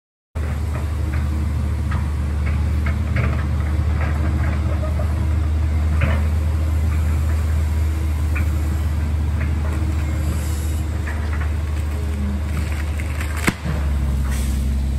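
Tracked excavator's diesel engine running steadily under load as its boom and grapple push a pine tree over, with scattered cracks and snaps of wood. A single sharp crack comes near the end.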